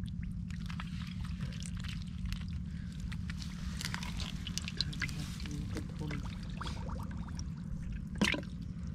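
Small splashes and drips of shallow muddy water as a goldfish is handled in a hand net and lifted out, then one louder splash about eight seconds in as the fish goes into a glass tank of water. A steady low rumble runs underneath.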